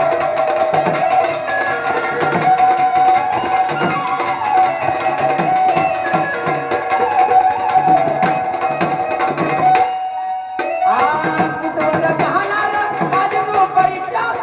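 Gondhal folk music: a sambal drum beating a steady rhythm under a sustained melodic tone, which thins out briefly about ten seconds in.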